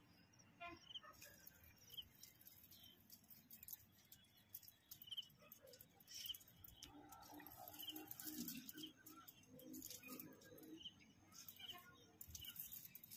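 Faint bird calls: a short, high chirp repeated about once a second, with a fainter, lower murmur in the middle stretch.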